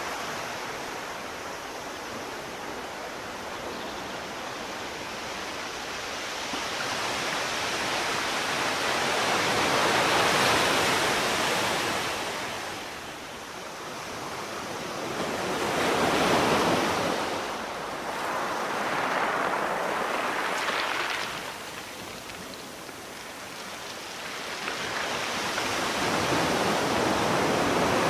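Sea waves breaking, the rush of surf swelling and falling away again every few seconds.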